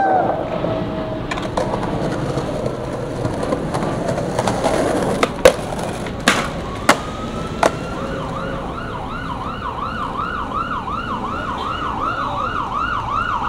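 Skateboard wheels rolling on pavement, with four sharp clacks of the board a little before the middle, as the board pops onto and comes off a concrete ledge. From just past the middle, an emergency vehicle siren yelps, wailing rapidly up and down about three times a second.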